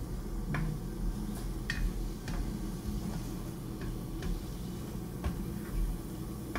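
Spoon stirring a pot of ham and sofrito, tapping and scraping against the pot in irregular light clicks.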